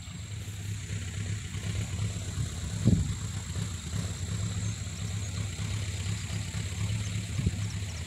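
Steady low motor-like hum, with a brief thump about three seconds in.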